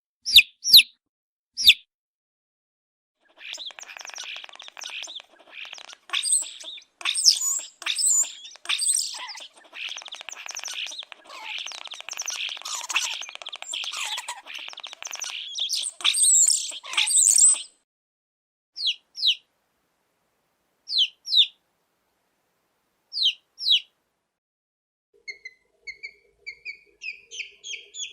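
Young domestic chicks peeping. A few sharp chirps come first. Then a dense chorus of many chicks cheeping at once runs for about fourteen seconds. After that come spaced pairs of single peeps with complete silence between them, and near the end a quick run of rapid, rising peeps.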